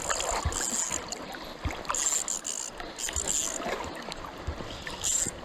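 River water rushing around a wading angler, with several short high-pitched bursts of hiss and a few dull knocks.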